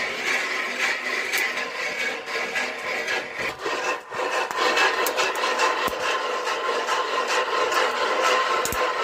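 Dry maize kernels stirred and scraped in a long-handled metal roasting pan over a wood fire: a dense rasping rattle with many sharp clicks, from about four seconds in. Before that, a steady hiss.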